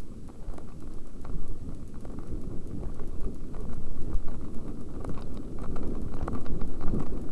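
Mountain bike rolling fast over a bumpy dirt trail, heard from a helmet-mounted camera: a steady low rumble from tyres and wind, broken by frequent short clicks and rattles as the bike and camera bounce. It grows a little louder after about three seconds.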